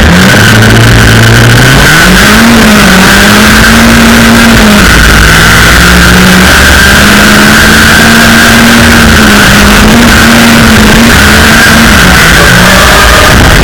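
SR20-engined Toyota AE86 drift car's engine heard from inside the cabin at high revs, very loud. The revs climb about two seconds in, then hold high with brief dips as the throttle is worked through the drift.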